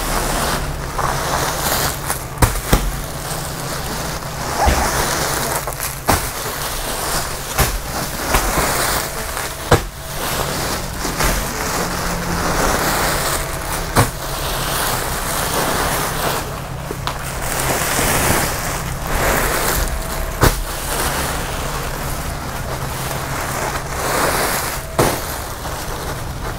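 Plastic rustling and crinkling in repeated swells, with sharp crackles and knocks, as plastic-wrapped clothing packs are pulled out of a black plastic liner inside a sack bale. A steady low hum runs underneath.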